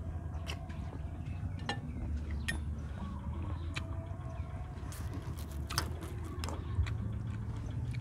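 Eating sounds: scattered sharp clicks of a metal spoon against a plate, with chewing, over a low steady rumble.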